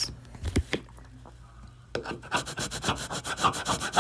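A flat hand tool scraping stuck transfer-tape residue off a Cricut StrongGrip cutting mat in rapid short strokes, several a second, starting about halfway through after a couple of light knocks.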